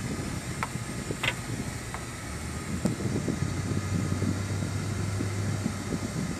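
Road and engine noise inside a moving car's cabin: a steady low rumble, with a few light clicks in the first three seconds and a low engine hum from about two seconds in.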